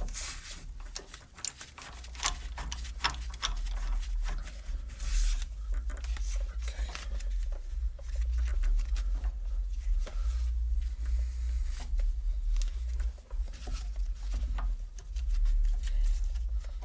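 Scattered metal clinks and knocks with rustling as a ball joint press and its adapters are handled and lined up on a pivot arm bushing. A low rumble comes in about two seconds in.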